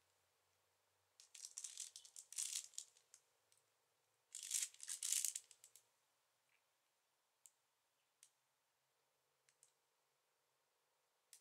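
Paper packet of gas lantern mantles rustling and crinkling in two short bursts as it is held against a handheld dosimeter, followed by a few faint, separate clicks.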